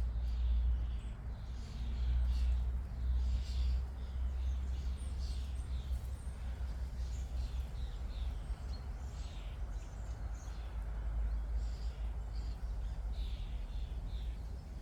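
Several small birds chirping and singing in short, overlapping calls, over a steady low rumble.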